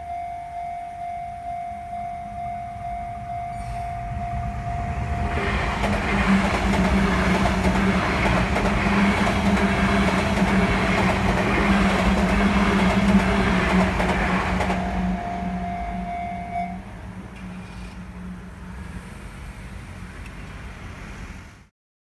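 Japanese railway crossing alarm ringing with a steady pulsing tone about twice a second, then a Sagami Railway electric train passing over the crossing with a loud rumble and clatter for about nine seconds. The alarm sounds briefly again after the train, then stops as the crossing clears.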